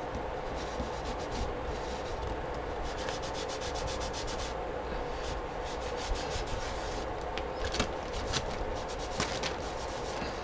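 A hand rubbing a crumpled wipe over paper through the openings of a stencil, in quick runs of short scrubbing strokes. A steady low hum runs underneath.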